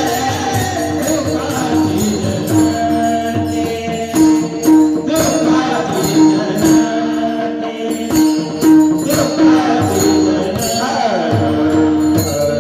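Warkari kirtan music: steady pakhawaj drum strokes and jingling metal percussion over held, sustained tones. A voice sings a short bending phrase near the end.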